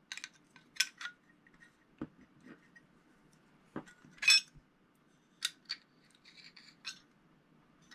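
Small metal parts of a Mitchell 300 spinning reel clicking and clinking as a plate is handled and fitted onto the rotor shaft: scattered light clicks, the loudest about four seconds in.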